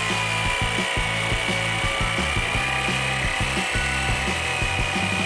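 A DeWalt jigsaw cutting through the wooden buttstock of a shotgun: the blade rasps through the wood in rapid strokes over the motor's steady high whine.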